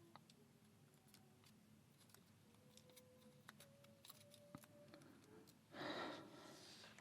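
Near silence with faint, scattered small clicks of lock parts and tools being handled, and a short breathy exhale about six seconds in.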